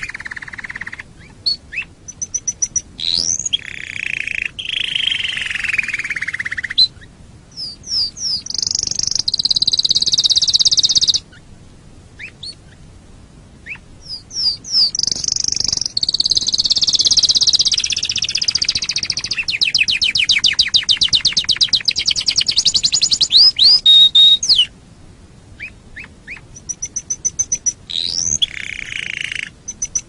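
Domestic canary singing phrases of rolling trills and quick rising notes, separated by short pauses, with a long run of rapid, evenly repeated notes through the middle.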